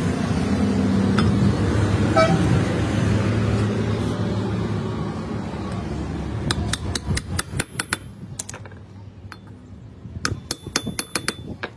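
Hammer striking a steel drift to drive a ball bearing into a motorcycle wheel hub: two quick runs of sharp, ringing metal-on-metal taps, the first about six seconds in and the second near the end. A low rumbling noise fills the first half.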